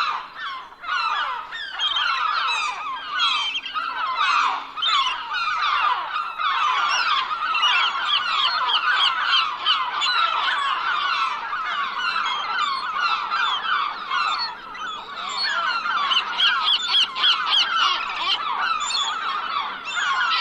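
A large flock of gulls calling all at once: a dense, continuous chorus of many short overlapping calls.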